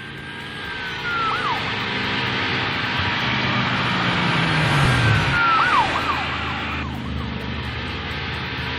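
Police car siren wailing over steady rushing vehicle noise; its high tone holds, then swoops down, about a second in and again around the middle.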